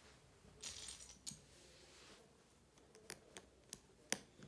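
Lego pieces clicking as a flat plastic tile is pressed onto a small brick assembly: a brief rustle about a second in, then a few faint, sharp plastic clicks, the loudest near the end.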